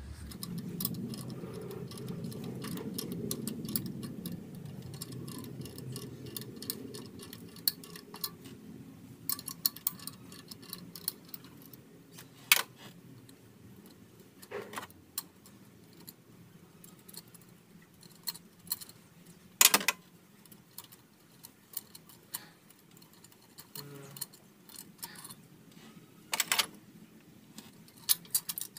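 Small metallic clicks and clinks as hands and tools work among an engine's exposed camshaft, rocker arms and hydraulic lifters, with a few sharper metal knocks later on. A low rumble fades out over the first several seconds.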